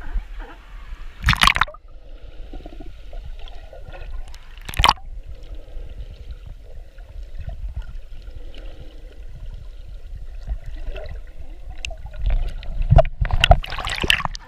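Seawater sloshing and gurgling around a camera moving between the surface and underwater, with a muffled rumble while it is submerged. Sharp splashes come about a second in and near five seconds, and several in quick succession near the end as it breaks the surface.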